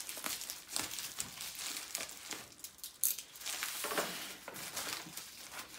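Plastic mailer and paper packaging crinkling and rustling as the mailer is slit open and its contents slid out, in irregular crackles with a sharper rustle about three seconds in.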